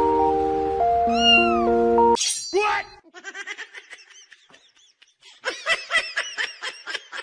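Music with held keyboard chords for about two seconds, with a short cat meow over it. Then the music cuts out and a cat gives one loud falling meow, followed by quieter sounds and then a quick run of high mewing calls.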